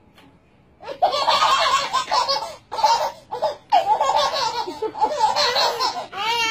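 A baby laughing hard in repeated bursts of giggles, starting about a second in, with short breaks between them.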